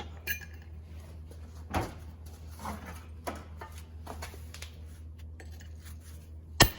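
A new pinion seal being tapped into a Ford 8.8 differential housing: a handful of irregular metal knocks, with a sharp, loud strike near the end, over a steady low shop hum.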